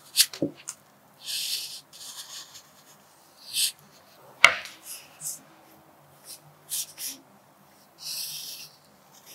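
Pencil scratching on paper in short strokes of about half a second each, with several sharp clicks and taps in between; the loudest is a single sharp tap about halfway through.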